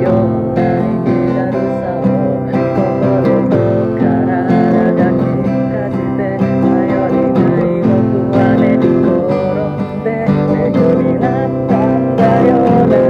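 Acoustic guitar music: strummed chords with a melody line above them.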